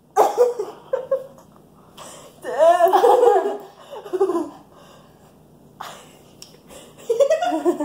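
Young girls laughing in short bursts: once at the start, a longer laugh about two and a half seconds in, and again near the end.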